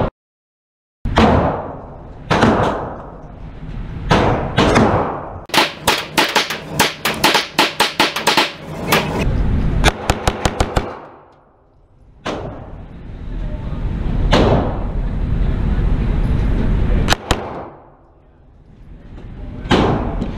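9mm Glock pistol fired in an indoor range, each shot echoing off the walls. It starts with single shots, then a long rapid string, then a very fast burst of about six shots around ten seconds in, followed by scattered single shots and a quick pair.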